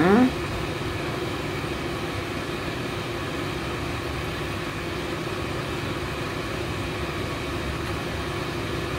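Steady hum of a ventilation fan or air-conditioner running, an even noise with a low drone and no other events.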